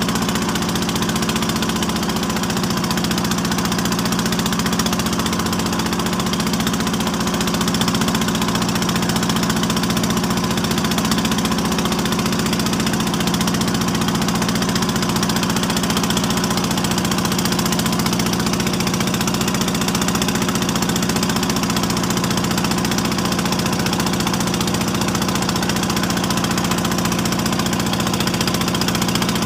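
Engine of a wooden outrigger boat running steadily at a constant speed while under way.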